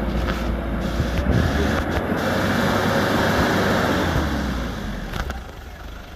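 Hyundai Galloper SUV engine working hard as the vehicle crawls through deep mud on a tow line, with a strong low hum. The noise eases off over the last second or so.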